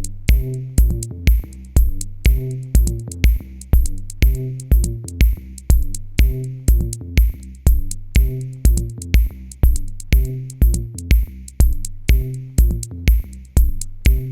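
Background electronic music: a steady drum-machine beat with a kick drum, a repeating bass line and crisp hi-hats.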